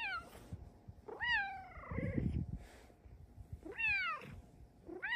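Bengal cat meowing four times in high, bending calls: a short one at the start, a longer drawn-out one about a second in that rises and then falls, another near four seconds, and one at the end.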